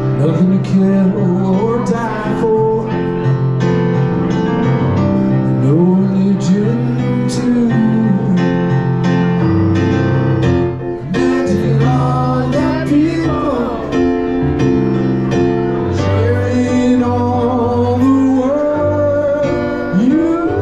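Background music: a song with singing over guitar accompaniment.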